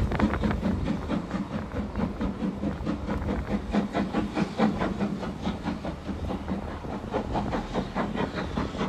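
Steam locomotive working, a quick, even run of exhaust beats over a steady hiss of steam.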